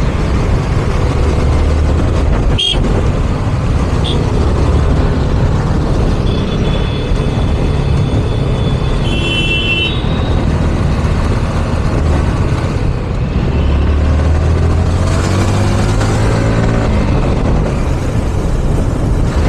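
Yamaha R15M's 155 cc single-cylinder engine running under way, with steady wind and road noise on the microphone. A vehicle horn sounds in the middle, and the engine revs up as the bike accelerates about three-quarters of the way in.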